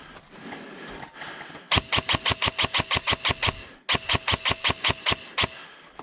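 Airsoft gun firing two quick strings of rapid shots, about seven a second, each lasting a second and a half to two seconds, with a short pause between them.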